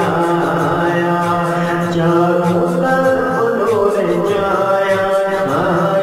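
A male voice sings an Urdu devotional song (naat) over a steady low drone and a soft pulse of about four beats a second.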